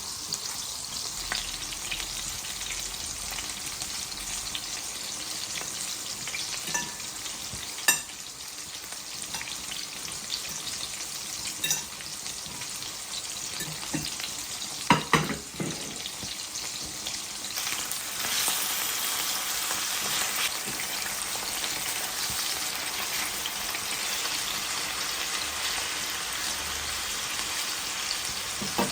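Food sizzling as it fries in a pan, with a few sharp knocks of a utensil against the pan while it is stirred. A little past halfway the sizzling gets louder and stays so.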